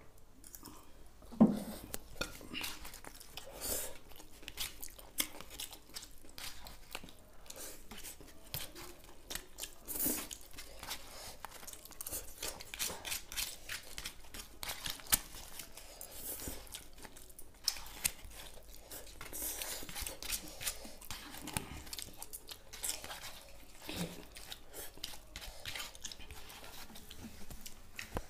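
Close-up eating sounds of two people working through plates of noodles: chewing and mouth noises, with forks clicking and scraping on paper plates. A louder thump comes about a second and a half in.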